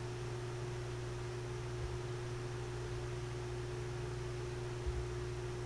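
Steady low electrical hum with a thin higher tone over a faint hiss, and a faint soft knock about five seconds in.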